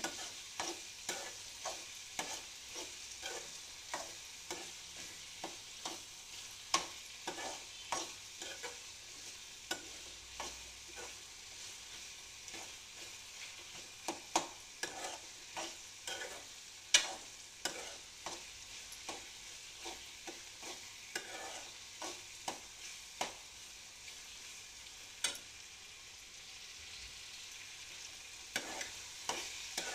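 Chopped onion and tomato frying in a metal kadai with a steady light sizzle, while a metal spoon stirs it, scraping and clicking against the pan about once or twice a second.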